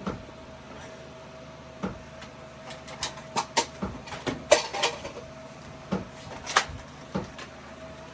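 Irregular sharp clicks and knocks from Nerf blasters and foam darts during a shoot-out, about ten in all and bunched near the middle, over a faint steady hum.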